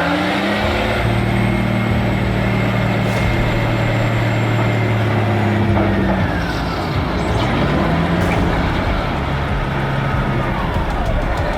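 Caterpillar 773E off-highway haul truck's diesel engine revving up and pulling steadily, easing off about six seconds in, then pulling again and winding down near the end.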